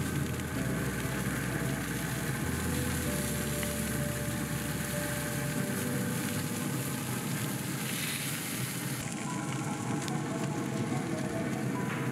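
Barbecue-sauced lamb chops sizzling steadily on a hot smoker grill as sauce is brushed onto them.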